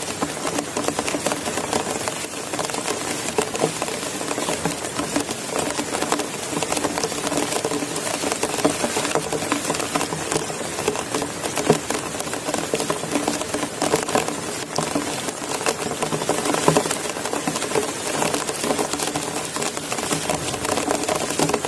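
Heavy rain falling steadily: a dense, continuous patter of raindrops.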